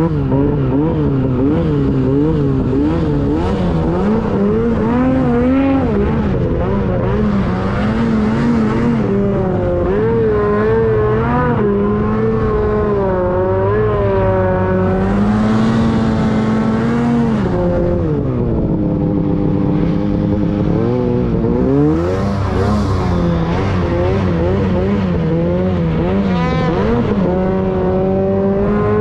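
Two-stroke snowmobile engine running hard under load, its pitch rising and falling constantly with the throttle, and dropping away and climbing back once about two-thirds of the way through.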